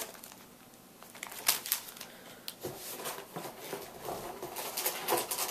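Plastic bait packs crinkling as they are handled and set down, in scattered rustles that start about a second and a half in and grow busier toward the end.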